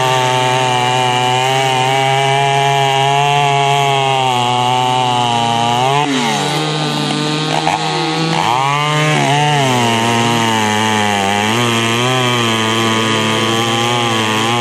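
Poulan Pro 655 boost-ported two-stroke chainsaw running at full throttle, cutting through a large log. About six seconds in it comes out of the cut and its pitch rises and wavers as it revs free, then drops back and holds steady under load as it bites into the wood again a few seconds later.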